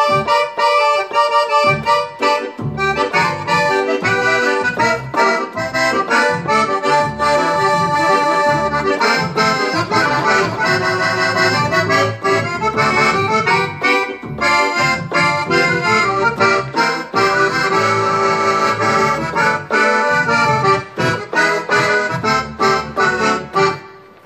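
Roland FR4X digital accordion playing a tune on a Cajun sound setting: a right-hand melody over pulsing bass-button notes. The playing stops just before the end.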